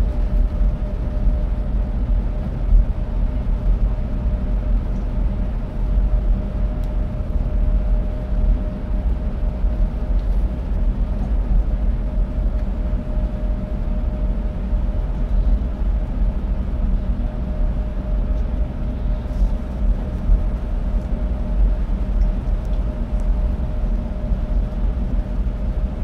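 Cabin noise of a bus cruising at about 75 km/h through a road tunnel: a steady low rumble from the engine and tyres, with a steady mid-pitched hum on top.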